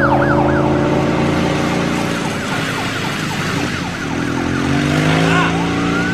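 Cartoon police car siren wailing in quick up-and-down sweeps, about three a second, over a steady low engine hum. The wail fades in the middle, and near the end a single long tone rises and then slowly falls.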